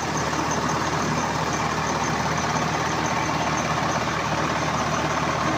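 Swaraj 742 tractor's three-cylinder diesel engine running steadily, powering a rice mill that runs along with it.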